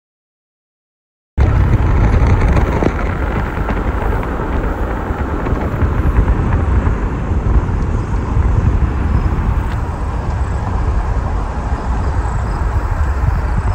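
Steady low rumble of road and wind noise inside a moving car. It starts abruptly about a second and a half in.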